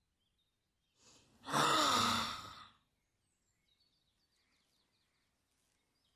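A single breathy, voiced sigh lasting just over a second, its pitch rising and falling, about a second and a half in.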